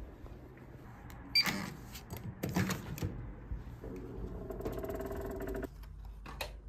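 Hotel room door being unlocked and opened with a key card: a short electronic beep and click from the lock about a second in, then clatter of the latch and lever handle, a rattling hum for about a second and a half, and a click near the end as the card is pushed into the room's power-switch slot.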